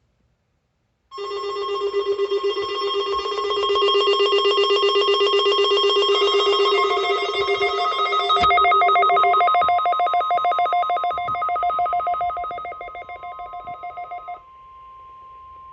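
The NOAA Weather Radio warning alarm tone, a steady 1050 Hz tone, sounding together with the alarms of several weather-radio receivers it has set off. The receivers give fast pulsing electronic beeps at different pitches that overlap and come in and drop out. All of them stop about 13 seconds in, while the steady tone carries on.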